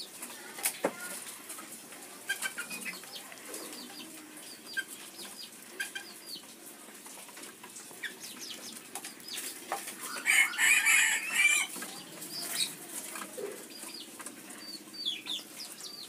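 A freshly snared white-breasted waterhen flapping its wings as it is handled out of the snare, with one loud flurry of flapping lasting a couple of seconds about ten seconds in. Short high bird chirps and clucks come and go throughout.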